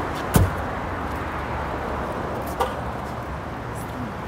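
Steady outdoor urban ambience with a low traffic hum, broken by a sharp knock about half a second in and a softer click a couple of seconds later.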